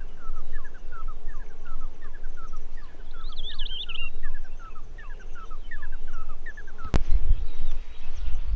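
Birds calling: a quick run of short whistled notes, each dropping in pitch, with a brief higher warble partway through. Near the end a sharp click, then low rumbling noise.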